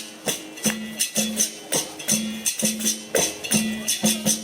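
Capoeira roda music: a berimbau sounding its twanging tone in a steady rhythm, with pandeiro jingles on the beats.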